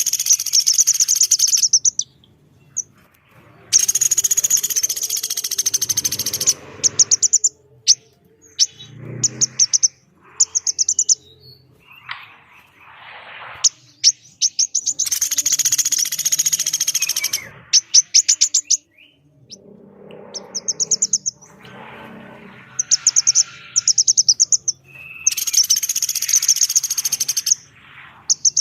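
Recorded calls of a pelatuk beras (small woodpecker) and a female korlap, harsh and raspy: several loud rattling calls about two seconds long, with short sharp notes and lower scratchy chatter between them.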